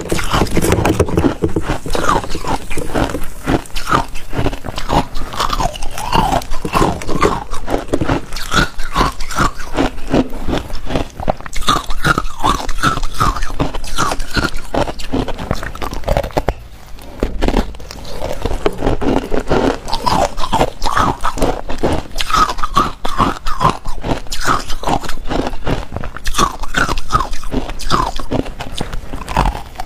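A person biting and chewing ice, with dense, loud crunching close to the microphone and a short pause a little past halfway.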